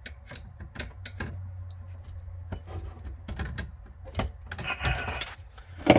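Small pliers working a faucet mounting nut under a bathroom sink: scattered metal clicks and scrapes with rubbing in between, over a low steady hum.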